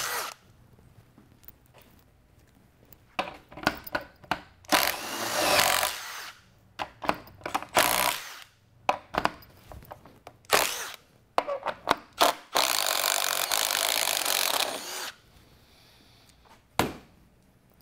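Milwaukee M18 Fuel impact driver running in several bursts, impacting in reverse to pull a self-feeding auger bit back out of a hole in wood; the longest burst lasts about two and a half seconds. It is a test of a 4 mm ball-bearing fix for the collet letting the bit pull out while impacting in reverse. A single knock comes near the end.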